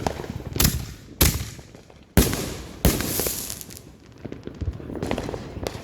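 Fireworks going off: four loud bangs in quick succession, each with a fading echo, followed by fainter crackling.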